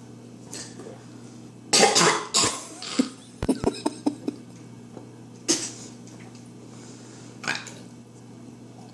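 A boy's short, throaty, cough-like bursts: the loudest near two seconds in, more at about two and a half, five and a half and seven and a half seconds, with a quick run of small clicks between three and four seconds.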